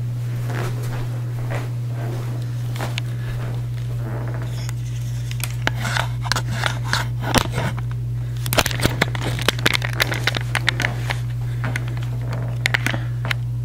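Handling noise from a handheld camera and laptop being moved about: scattered clicks and scrapes, busiest from about five to eleven seconds in, over a steady low hum.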